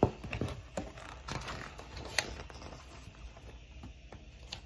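Picture book being handled and its page turned: scattered soft taps and rustles, with one sharper tap about two seconds in.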